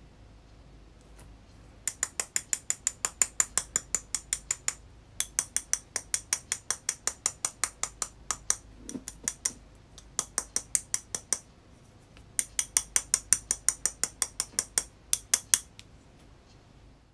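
Rapid sharp clicks, about five or six a second in four runs with short pauses, as a small plastic jar is pressed and tapped against crushed pressed makeup powder on the bottom of a glass baking dish.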